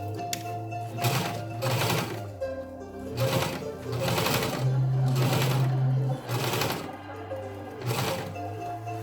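Sewing machine stitching fabric, under background music with sustained notes.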